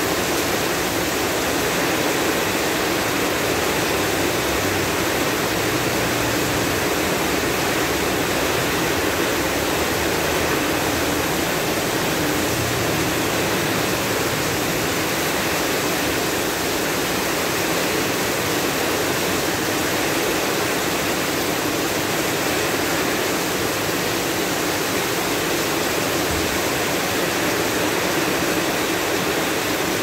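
Heavy rain pouring steadily onto a paved street, a dense, even hiss that holds at the same level throughout, with no thunder claps.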